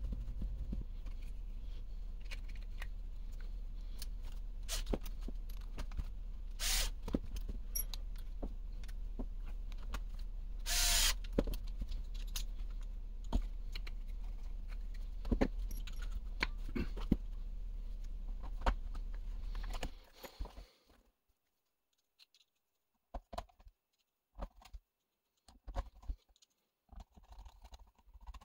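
Small clicks and light knocks of the plastic transmission housing and gears being handled and fitted, over a steady low hum. Two brief louder rasps stand out near 7 and 11 seconds in. After about 20 seconds the hum stops and only scattered clicks remain.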